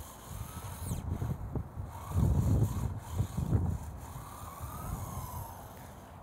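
Electric motor of a WLtoys 144001 RC buggy whining as it drives, the pitch rising and falling as it speeds up and slows down. Low rumbling gusts of wind on the microphone, loudest about two seconds in.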